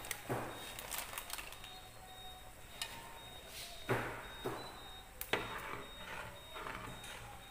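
A ladle knocking and scraping against an aluminium stockpot while chicken-feet soup is stirred: a few short clanks, the loudest about four and five seconds in, over a low steady hiss from the pot on the stove.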